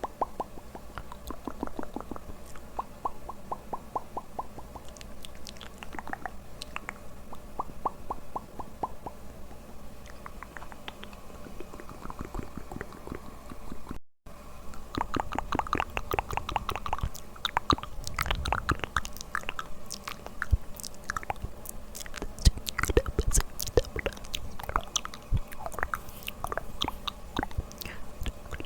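Close-miked ASMR mouth sounds: rapid strings of wet clicks and smacks from lips and tongue. After a brief dropout about halfway they come denser and louder.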